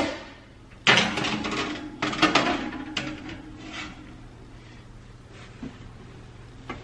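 Metal baking sheet scraping and clattering as it is slid onto an oven's wire rack, with a sharp click at the start and several knocks during the first few seconds, then quieter.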